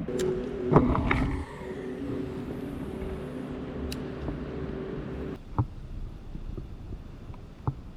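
A motor engine running with a steady hum, with a few sharp clicks near the start; the hum drops away abruptly about five seconds in, followed by two more clicks.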